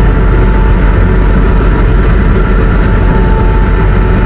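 Helicopter engine and rotor noise: a loud, steady low rumble with a constant high whine over it.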